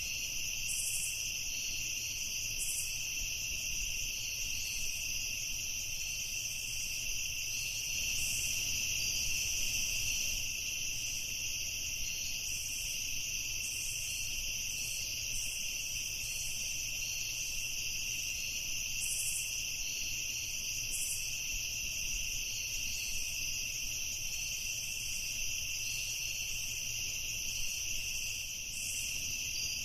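Night chorus of crickets trilling steadily at two high pitches, with a higher chirping that pulses irregularly above them.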